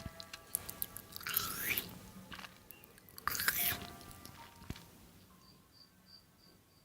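Someone chewing and crunching on food in irregular bites, over soft background music. The bites fade out after about five seconds.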